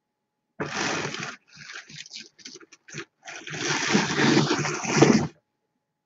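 Louet Classic drum carder being hand-cranked as wool fibre is fed through, the carding cloth rasping. There are two longer spells of scratchy noise with short broken scrapes between them.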